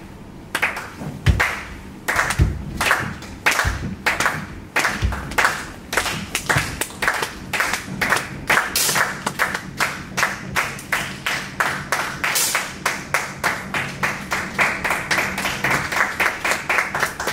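Clapping, about three claps a second and fairly even, going on steadily. A few louder, sharper cracks stand out in the first five seconds.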